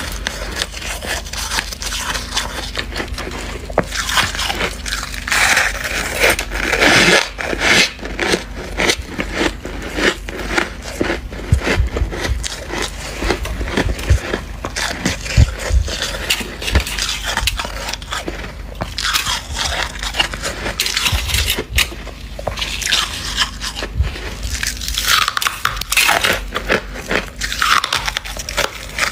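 Freezer frost being bitten and crunched with dense, crackly crunches, along with stretches of frost being scraped.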